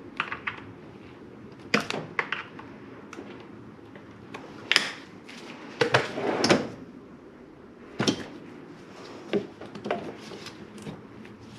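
Scattered clanks and clicks of hand tools and metal parts being handled. About halfway through, a longer sliding clatter comes from a steel rolling tool chest drawer being opened and shut.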